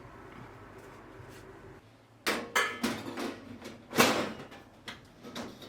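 Handling noise on an oven's sheet-metal casing: a run of sharp knocks and rattles that starts a couple of seconds in, the loudest about four seconds in, after a faint steady hum.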